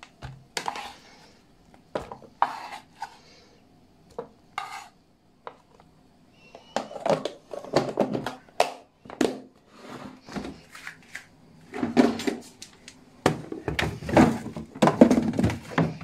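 Plastic food container being filled with orange and lemon pieces and handled, a run of knocks, clicks and clatters, then a freezer drawer pulled open near the end.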